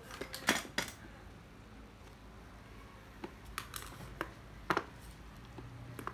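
Handling noise from used spinning fishing reels being picked up and set down: scattered sharp clicks and light knocks, the loudest about half a second in and others about three to five seconds in.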